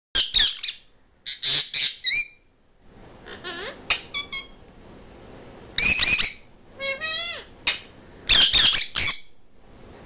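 Pet parrots, an Indian ringneck parakeet and a sun conure, giving loud, harsh squawks in about seven short clusters, with a few rising-and-falling pitched calls among them. The squawking is a jealous protest: the ringneck lunges at the hand that is petting the conure.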